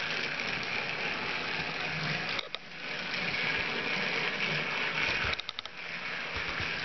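Battery-powered TrackMaster Rebecca toy engine running along plastic track with a tender and wagon in tow: a steady motor-and-gear whir with wheel noise. It dips briefly twice, with a few clicks at the second dip.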